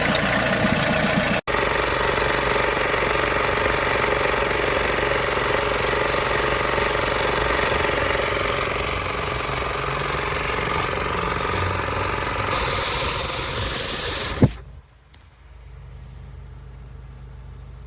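Portable 12 V tyre inflator's small piston compressor running with a steady rattle. Near the end a loud hiss of air lasts about two seconds, then the compressor stops suddenly, and a single click follows shortly before the end.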